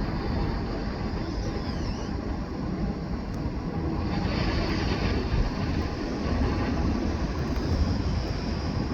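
Jet airliner engines making a steady, broad rumble with no distinct rhythm.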